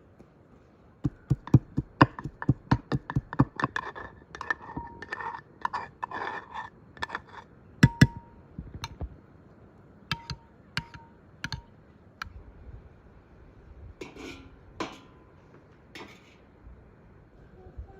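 Dishes and utensils clinking: a quick run of sharp clicks and knocks, some ringing briefly like glass or ceramic, thinning out to scattered taps with a few duller scrapes near the end.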